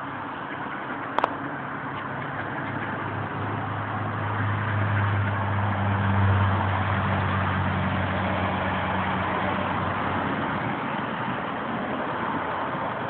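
A motor vehicle's engine running over steady noise, its low hum swelling in for several seconds in the middle and then fading. A single sharp click comes about a second in.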